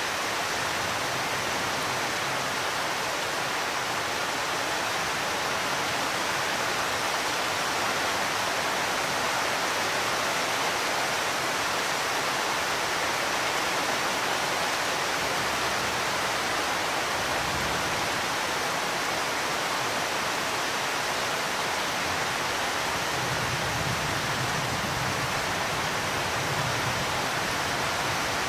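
Steady hiss of heavy rain in a thunderstorm, with low rumbles of distant thunder about two-thirds of the way in and again near the end.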